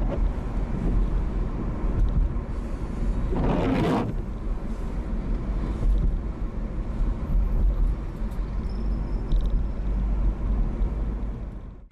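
Car road noise heard from inside the cabin while driving: a steady low rumble, with a brief louder rush about three and a half seconds in.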